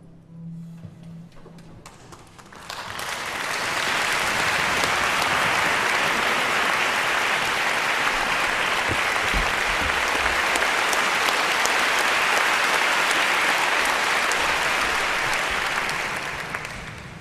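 Concert hall audience applauding to welcome the conductor before the performance; the applause swells in a couple of seconds in, holds steady, and dies away near the end.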